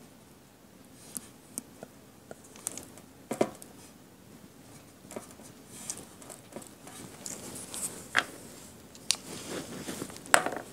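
Faint, irregular light taps of a paint pen's tip dabbing dots onto a card panel, about eight scattered ticks with quiet room tone between.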